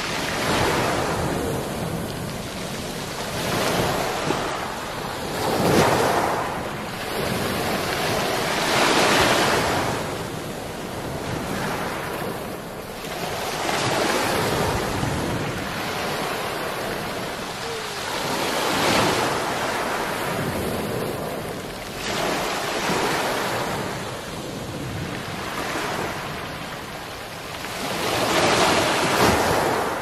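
Small waves breaking on a beach of round black pebbles and washing back, rolling the pebbles, the sound swelling and ebbing every few seconds.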